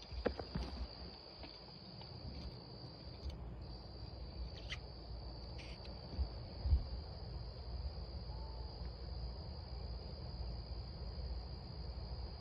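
A continuous high-pitched insect trill, like crickets, that breaks off briefly a few seconds in, over a faint low rumble.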